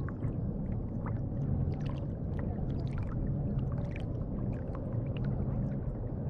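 Water washing and lapping against the nose of a kayak moving across calm water, picked up by a camera just above the waterline: a steady low wash with many small scattered splashes and drips.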